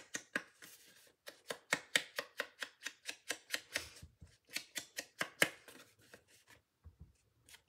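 Foam ink dauber dabbed on the edges of card stock to sponge on ink: quick, light taps, about four a second, with a brief pause near the end.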